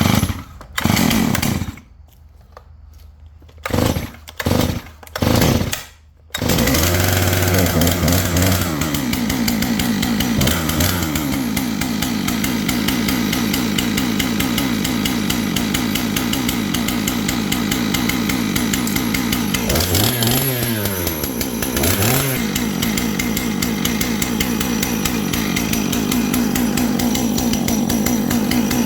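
A 661 clone two-stroke chainsaw pull-started on the ground: several short yanks of the starter cord, then the engine catches about six seconds in and keeps running on its replacement ignition coil. Its speed drops and picks up again briefly near the middle, then it runs steadily.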